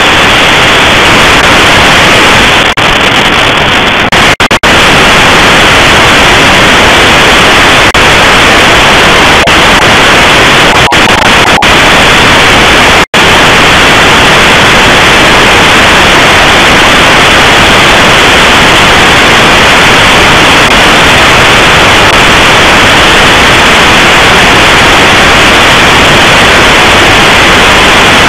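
Loud, steady shortwave radio static from an online WebSDR receiver, a dense hiss with no signal heard in it. It drops out briefly about 4 and 13 seconds in.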